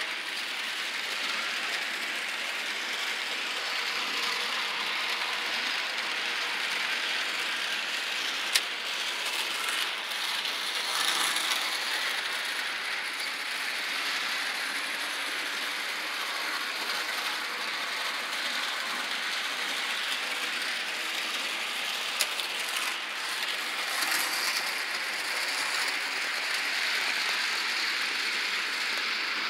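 Model 'Chattanooga' steam locomotive running around the track pulling passenger cars: a steady whirring rattle of its small motor, gears and wheels on the rails, with two sharp clicks, one about a third of the way through and one about three quarters through.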